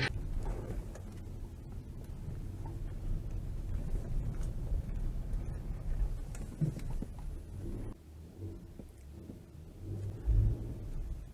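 A vehicle running with a low rumble while driving off-road over snow, with a louder low thump near the end.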